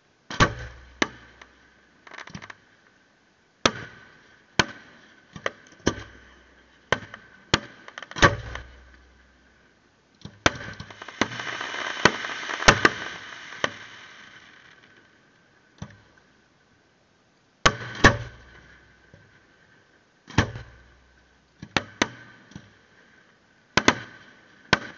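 Fireworks display: aerial shells bursting in an irregular string of sharp bangs, a second or so apart, several followed by a low rolling rumble. Around the middle comes a few seconds of dense crackling.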